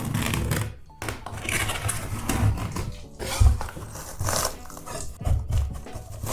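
Hand scraper scraping and prying glued ceiling tiles off drywall, the tiles tearing away in irregular rasping bursts, with a dull thump about three and a half seconds in.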